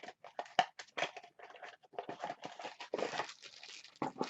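A plastic-wrapped cardboard blind box being torn open by hand: a quick, irregular run of crinkling, tearing and scraping.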